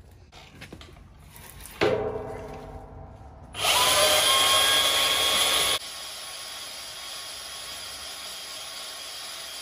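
Cordless portable band saw cutting through a steel beam: motor whine with the blade grinding on steel. It comes in suddenly about two seconds in, is loudest for a couple of seconds, then drops off sharply to a steady, quieter hiss.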